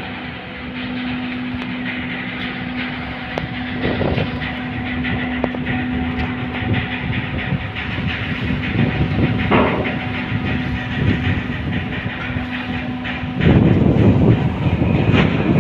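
Ro-ro car ferry's machinery running with a steady hum, with intermittent clattering, and a louder rumble that sets in about two seconds before the end.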